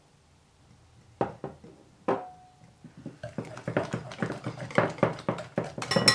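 Wire balloon whisk mixing flour into a water-and-yeast poolish in a glass bowl. A few clinks of the whisk against the glass come about a second in, one leaving a brief ring from the bowl. From about three seconds on comes quick, steady whisking that grows louder as the batter thickens.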